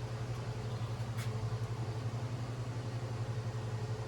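Steady low mechanical hum with a slight pulsing, with one faint click about a second in.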